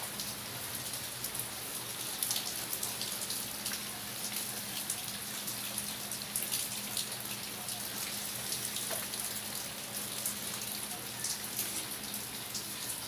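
Steady light rain falling, a constant hiss dotted with the ticks of individual drops hitting nearby surfaces.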